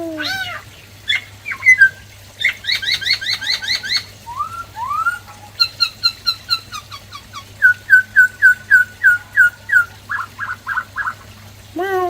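Black-throated laughingthrush singing a varied song of clear whistled phrases. It shifts between rapid repeated notes and short trills.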